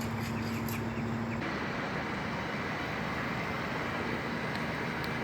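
Steady engine noise with a low hum and a droning tone that drops out about a second and a half in.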